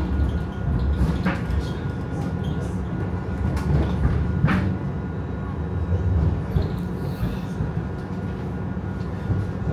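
Interior running noise of a Pesa Twist 147N low-floor tram in motion: a steady low rumble of wheels on rails and drive, heard from inside the passenger cabin. Two short sharp clicks, about a second in and again past four seconds.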